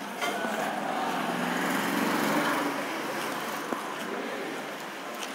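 A motor running with a low hum, swelling to its loudest about two seconds in and then easing off.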